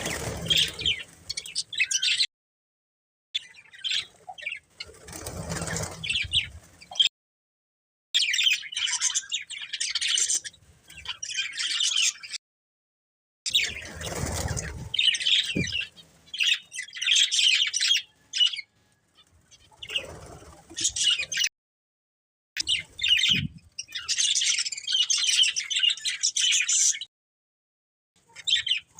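Budgerigars chirping and warbling in a fast, busy chatter, cut off abruptly into dead silence several times. A few low rumbles sound underneath.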